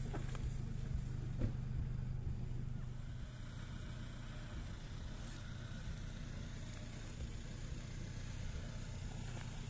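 A low, steady engine-like hum of a vehicle, fading after about three seconds, over low rumble, with one sharp knock about a second and a half in.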